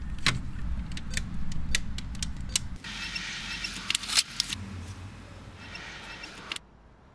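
Street cash machine in use: a run of sharp clicks as the card goes in, over a low traffic rumble. About three seconds in, the note dispenser whirs and rustles as the banknotes feed out, then it stops abruptly.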